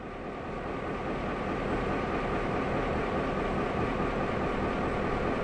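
SSR T-class diesel-electric locomotives idling at a standstill: a steady engine rumble with a faint steady whine, fading up over the first second or two and then holding level.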